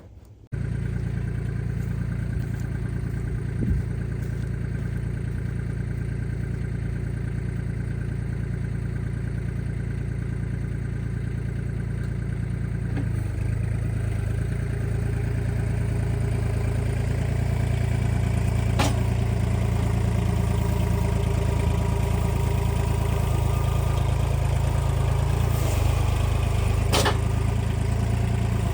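An engine running steadily at constant speed, picking up a little about 13 seconds in, with a few sharp clanks on top.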